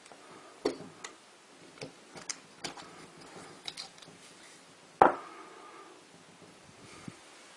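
Scattered light clicks and taps of small tools and model locomotive parts being handled. The loudest is a sharper knock about five seconds in that rings briefly.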